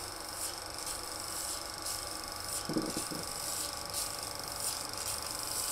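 Film projector running as a countdown leader plays: a steady whir and buzz with faint high ticking about twice a second, and two short low knocks about three seconds in.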